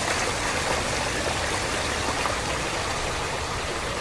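Steady splashing of running water from a small waterfall.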